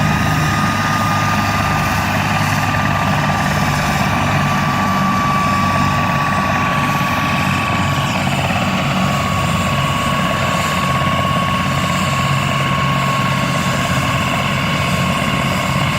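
Air-ambulance helicopter running on the ground with its rotor turning: a steady rotor beat under a high turbine whine that sinks slowly in pitch.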